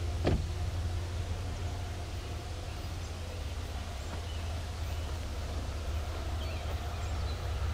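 Approaching CSX diesel freight locomotive and its train making a steady low rumble, with one brief sharp sound about a third of a second in.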